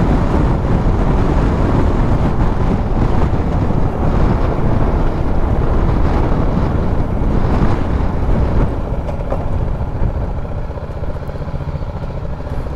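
Wind noise on the microphone over the BMW G310 GS's single-cylinder engine while riding. It eases off after about eight and a half seconds as the bike slows down.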